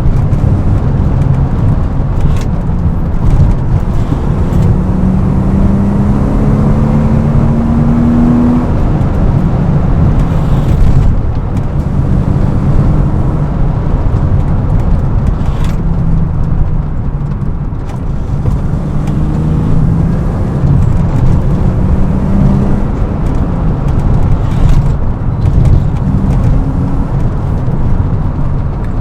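BMW E36 M3's straight-six engine running while driven, its note repeatedly climbing and then dropping, over a steady low road rumble.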